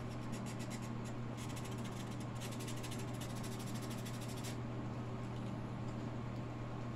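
Rapid rasping strokes of sandpaper being worked back and forth to take a burr off a small model-kit piece, running for about the first four and a half seconds. A steady low hum lies underneath.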